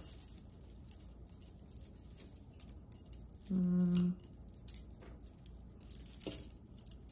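Costume jewelry being handled: scattered light clicks and clinks of beads, chains and metal pieces knocking together. A brief hummed voice sounds once, about three and a half seconds in.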